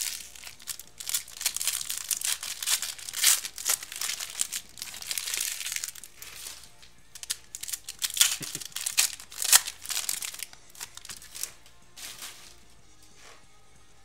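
Foil Panini Select trading-card pack wrappers crinkling and tearing as they are ripped open by hand, a dense, irregular crackle that thins out over the last two seconds.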